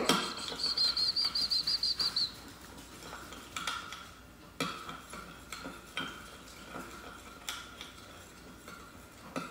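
Metal spoon stirring slime in a glass bowl, scraping and clinking now and then against the glass. In the first couple of seconds a quick run of about ten high chirps sounds, then stops.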